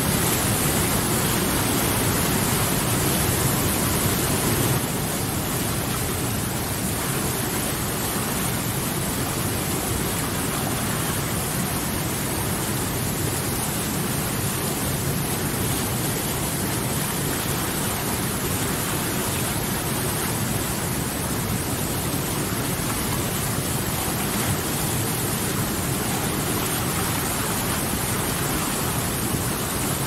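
Whitewater rapids rushing over boulders: a steady, dense wash of water noise that drops slightly in level about five seconds in.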